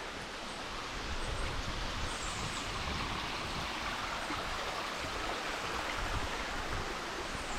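Steady rush of flowing water from a stream and small waterfall.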